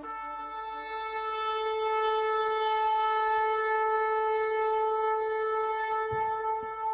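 A horn blowing one long held note, growing a little louder over the first two seconds, sounding the opening of the dance-drama's music.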